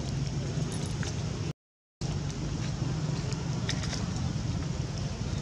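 Steady rumbling background noise with a few faint high clicks, cutting out completely for about half a second around one and a half seconds in.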